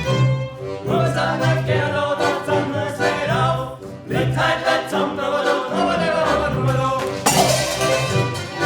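Music with singing voices over an instrumental accompaniment of sustained low notes.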